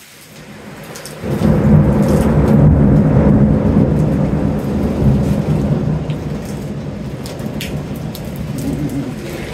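A long roll of thunder with rain falling. It builds through the first second, breaks loud a little over a second in, and rumbles on for several seconds before slowly fading.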